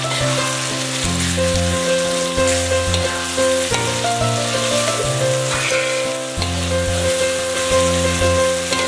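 Onions, chillies and ginger-garlic paste sizzling in hot oil in a kadai, with a metal spatula stirring and scraping through them. Background music with sustained chords plays throughout.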